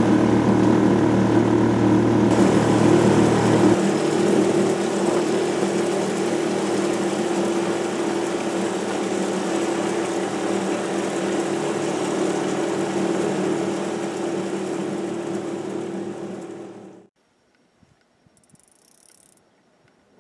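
Outboard motor of a small aluminium boat running steadily under way, with water and wind rushing past. It cuts off suddenly near the end.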